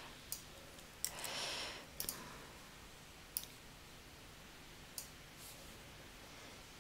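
Faint computer mouse clicks, about six at irregular intervals, with a soft rustle lasting under a second starting about a second in.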